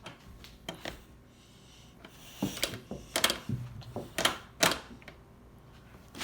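A run of irregular, sharp clicks and knocks, the loudest a few close together between about three and five seconds in.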